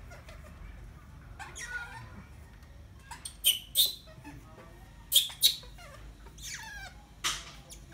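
Baby monkey squealing: short high-pitched cries, several in quick pairs, and a longer falling cry near the end.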